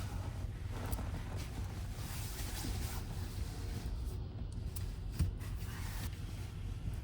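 Light rubbing and rustling handling noises over a steady low rumble, with one sharp knock about five seconds in.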